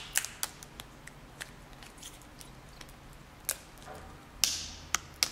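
Clear plastic protective film crackling and crinkling as it is handled and peeled off a new smartphone: a series of sharp crackles, with a longer rustle about four and a half seconds in.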